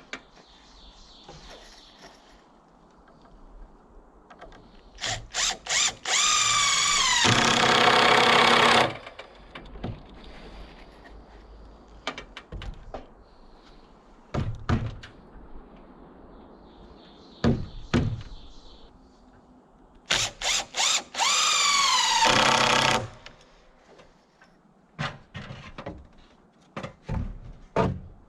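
Cordless drill run twice for a couple of seconds each, its whine dropping in pitch as it winds down, with short trigger blips before each run. Knocks and clatter of handling between the runs.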